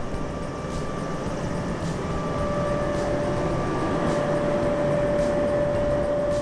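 Amano MA573 cyclone dust collector running: a steady rushing noise with a constant tone, growing a little louder about two seconds in.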